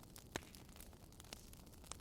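Wood fire crackling faintly: three sharp pops, the loudest about a third of a second in, over a low steady rumble of the fire.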